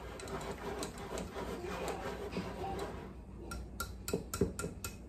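Metal whisk working a thick biscuit dough in a glass bowl: a soft stirring scrape, then, past the halfway point, the whisk clinking sharply against the bowl about three times a second.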